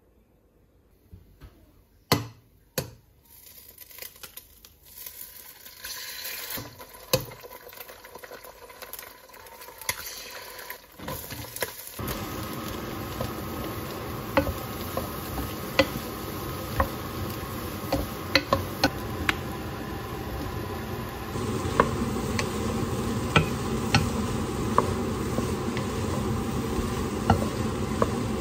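A few knocks, then from about twelve seconds in, vegetables sizzling in a wok as a wooden spatula stirs them, with frequent small scrapes and taps against the pan. The sizzle gets louder about two-thirds of the way through.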